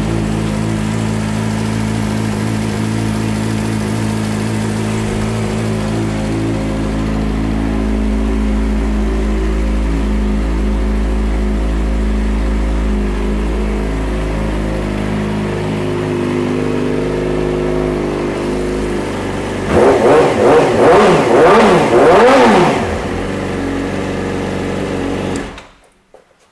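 2012 Yamaha YZF-R6's 600cc inline-four, breathing through a full Two Brothers exhaust system, idling steadily. About twenty seconds in it is revved in a few quick blips that rise and fall, then it settles back to idle and is switched off near the end.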